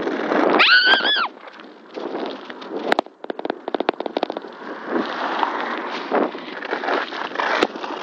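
Wind rushing over a phone's microphone and road rumble as a bicycle coasts fast down a steep hill. A short, loud, high-pitched squeal that rises and falls comes about a second in, and a quick run of clicks and knocks follows around three seconds in.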